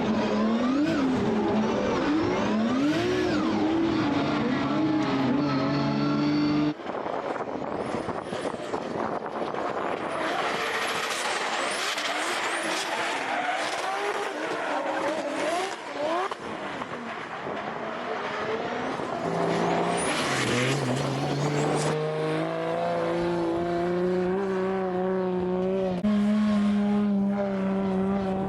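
Drift cars on track: engines revving up and down through the gears while the tyres squeal and skid through the slides. The sound changes abruptly about seven seconds in. A loud stretch of tyre screech follows, then engine revs climbing again near the end.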